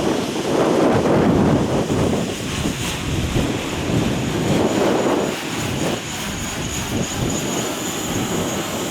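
Strong gusting wind buffeting the microphone in swells, with a DJI Mavic Pro quadcopter's propellers giving a thin, steady high whine that grows clearer in the second half.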